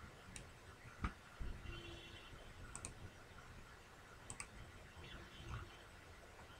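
Faint computer mouse clicks, some in quick pairs, with one sharper, louder knock about a second in, over faint steady room noise.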